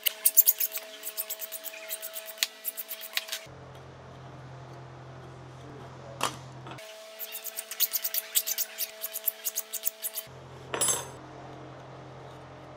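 Hand file rasping in quick strokes along the cut edge of a 2024-T3 aluminium sheet, smoothing and deburring the edge. There are two bouts of filing, one through the first few seconds and another from about seven to ten seconds in, with a single click between them.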